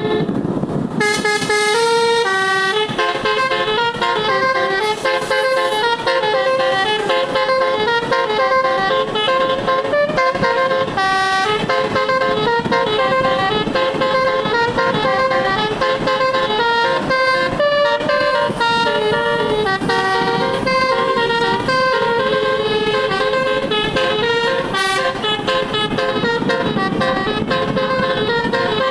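A bus's multi-tone telolet air horn, all its tones switched on, playing a tune: pitched notes step up and down every fraction of a second without a break.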